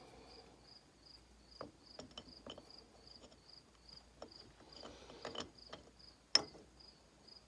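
A cricket chirping steadily, two to three high chirps a second, under scattered light clicks and knocks of engine parts being handled on the bench. The sharpest click comes about six seconds in.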